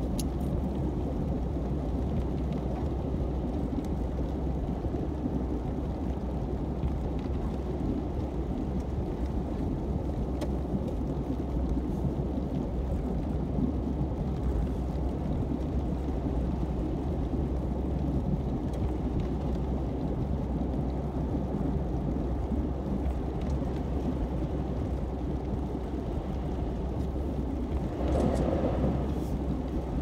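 Steady low rumble of a car's tyres and engine heard from inside the cabin while driving on a snow-covered highway, with a brief louder swell near the end.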